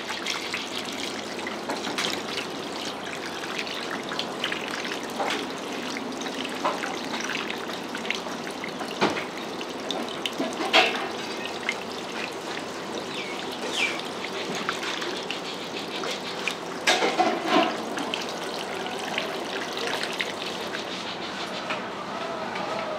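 Running water splashing steadily, with scattered clicks and a few sharper knocks.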